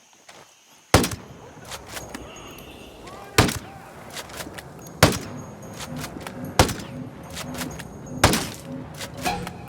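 Rifle fired five times at a steady pace, a shot about every second and a half, each a sharp crack with a short echoing tail, with lighter clicks between the shots.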